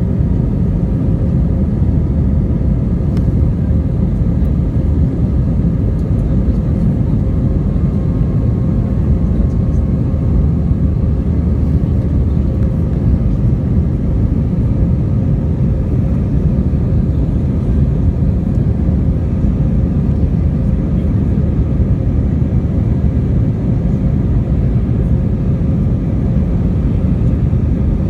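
Jet airliner cabin noise: a steady, loud low rumble of engines and airflow, with a faint steady hum above it.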